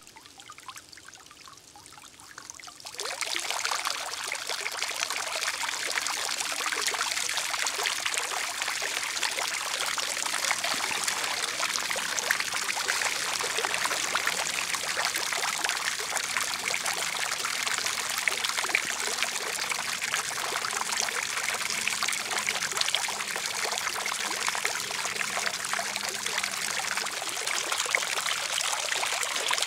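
Small garden fountain starting up about three seconds in: a ring of jets sprays thin streams of water that splash steadily into a shallow basin.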